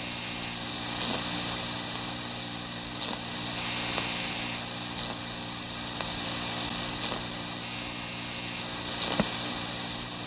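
Steady electrical hum and hiss on an old police dispatch tape recording while the radio channel is quiet, with faint clicks now and then.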